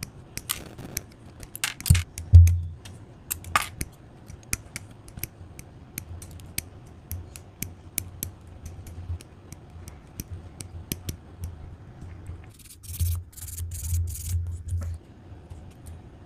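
Hobby side-cutters (nippers) snipping plastic model-kit parts off the sprue: repeated sharp clicks at an irregular pace. Near the end come a few short, rougher scraping sounds.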